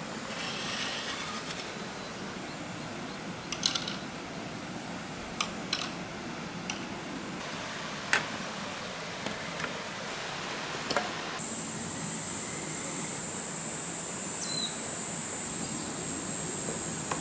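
Water running steadily down a bamboo-style somen nagashi slide, with marbles clicking sharply against the course several times. A steady high buzz joins about two-thirds of the way in.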